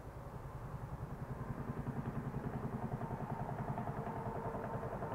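A motor vehicle's engine throbbing rapidly and growing steadily louder as it approaches.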